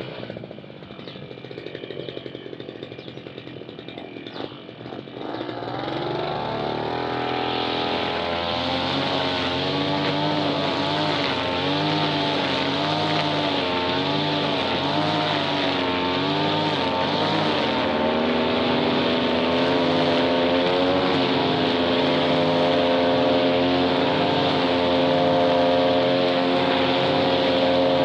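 Small petrol engine of a grass cutter starting about five seconds in, after some knocking and handling noises. It then runs with its speed rising and falling, and settles to a steady high speed from about halfway through.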